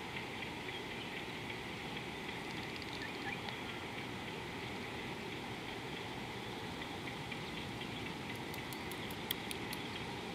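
Steady outdoor riverside background noise, with faint scattered chirps and ticks. Near the end comes a quick run of about seven sharp clicks.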